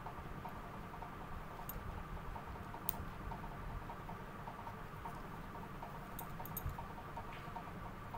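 Faint scuffling and pattering of a small dog moving about on bedding as it plays, with a few light clicks, the sharpest about three seconds in and a small cluster near the end, over a steady low hum.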